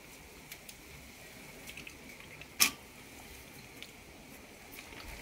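Hands pulling sticky jackfruit bulbs out of the cut fruit: faint soft, wet handling sounds and small clicks, with one sharp click about two and a half seconds in.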